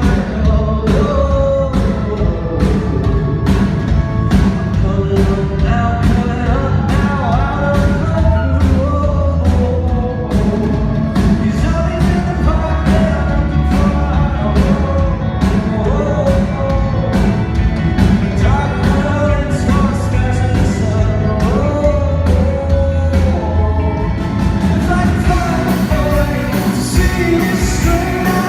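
Male singer with a live rock band, singing over a steady drum beat and bass.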